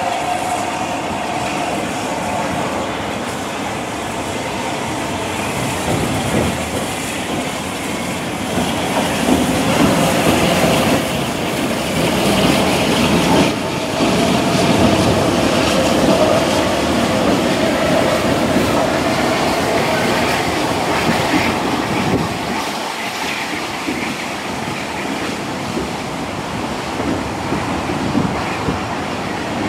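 Heritage steam-hauled train on the move, its carriages' wheels clicking over the rail joints with some wheel squeal. The sound grows loudest about a third of the way in and eases off after.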